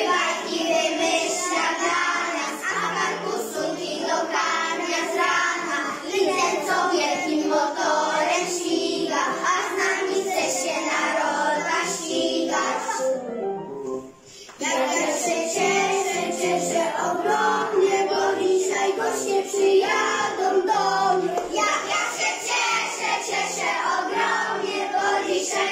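A group of children singing a song together over instrumental backing, breaking off briefly about halfway through.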